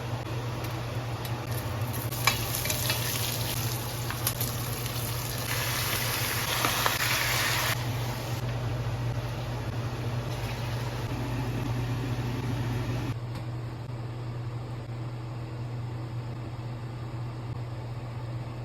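Squid stir-frying in a hot pan: sizzling with sharp clicks of a utensil against the pan, louder for the first eight seconds or so and then softer. A steady low hum runs underneath.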